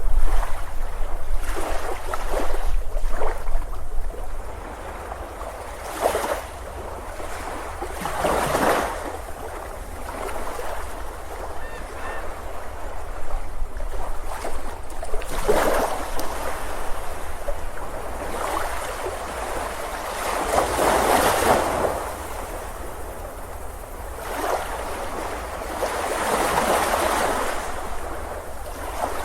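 Ocean waves washing onto a beach, one surge of surf every few seconds, over a steady low rumble.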